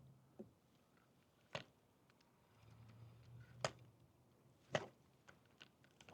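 Near silence broken by three sharp clicks, about a second apart, with a few fainter ticks near the end and a faint low hum.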